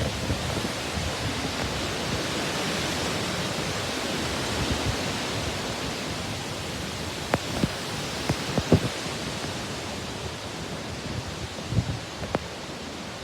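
Tropical storm weather: a steady rushing hiss of storm wind and weather, easing slowly over the second half, with a few faint sharp knocks.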